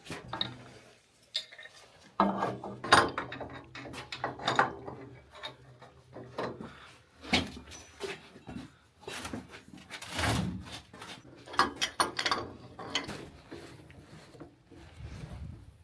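Irregular knocks, clicks and clatter of hard objects being handled and set down, with a faint low hum for a few seconds early on.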